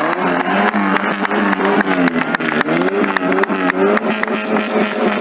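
An engine revving up and down over and over under a steady low drone, with frequent sharp cracks.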